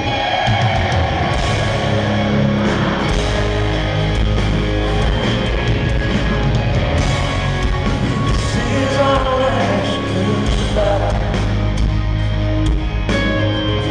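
Live country-rock band playing loudly through a PA: electric guitars and drums, with singing.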